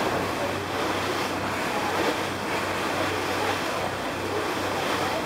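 Wind buffeting the microphone over the steady rush of choppy sea water, with a faint low hum underneath.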